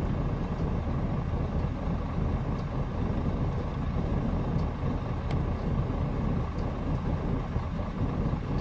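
Scania 113 truck's 11-litre straight-six turbo diesel idling with a steady low rumble, with a faint click about five seconds in.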